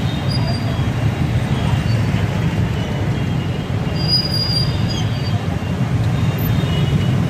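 A steady low rumble throughout, with a fainter hiss of battered durian fritters deep-frying in a wok of hot oil.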